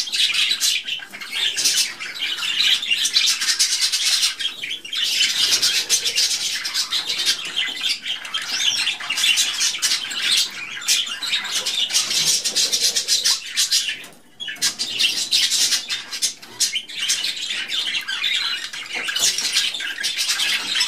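Budgerigars chattering and warbling without pause, a dense high twittering, with a brief lull about fourteen seconds in.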